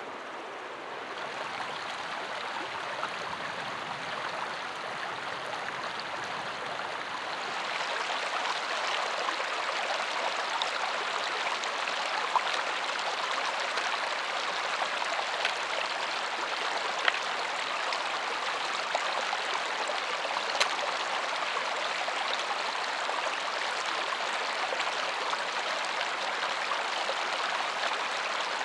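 Shallow stream running over stones, a steady babble that grows louder about seven or eight seconds in, with a few sharp clicks over it.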